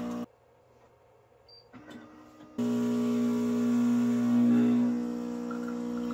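Philips EP2221 automatic coffee machine's vibration pump humming as it pumps water through, cutting out suddenly, then starting up again after about two seconds of near quiet and running steadily.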